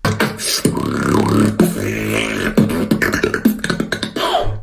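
Solo beatbox performance: rapid mouth-made drum clicks and hits over a held low bass tone, with short gliding vocal tones woven in.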